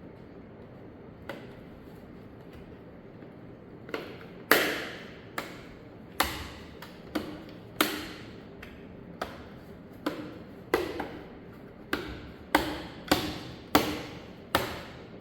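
Sharp plastic-and-metal clicks and taps from hands and tools working inside a computer during an SSD installation. One faint click comes about a second in, then about a dozen louder ones at uneven intervals from about four seconds on.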